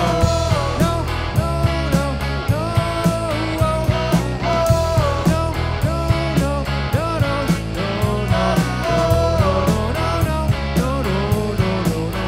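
Rock band playing live: drum kit keeping a steady beat, bass guitar and two electric guitars, with a voice singing over them.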